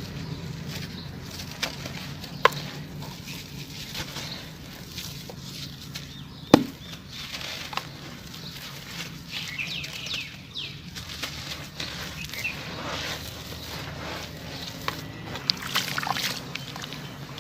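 Crunchy chunks of sand cement being crushed and crumbled, a running crackle of small grainy breaks with two sharp, loud snaps.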